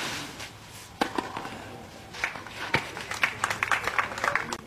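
A few sharp knocks of a tennis ball struck on a clay court, then a quick, uneven patter of light clapping from a few spectators through the last second and a half.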